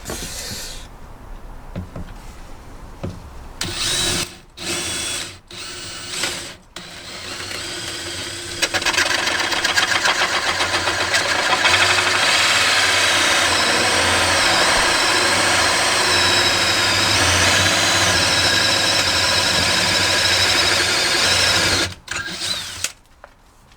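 Hand-held power drill turning an adjustable hole cutter through a test piece of laminate flooring. It starts and stops in a few short bursts, then from about nine seconds in cuts steadily with a high whine until it stops about two seconds before the end.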